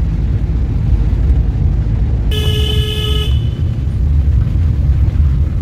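A car horn sounds once for about a second, a warning toot as the car nears a bend. Under it runs the steady low rumble of the small car's engine and tyres, heard from inside the cabin.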